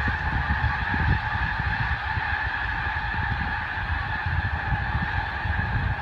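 A huge flock of snow geese calling all at once: a dense, unbroken chorus of honking, over a low, uneven rumble.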